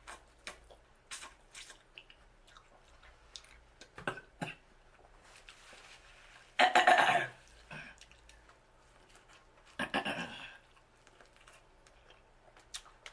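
Close-up mouth sounds of eating sauce-covered seafood boil: scattered wet smacks and chewing clicks. There are two louder bursts, about seven and ten seconds in.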